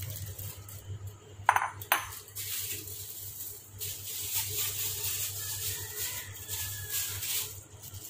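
Two sharp clinks of dishware about a second and a half in, then crinkling of a plastic bag of chicken innards being handled over a bowl at the sink, over a low steady hum.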